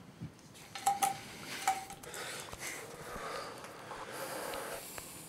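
Three short metallic clinks about a second in, each with a brief ring, then rustling and heavy breathing from the men as they grapple.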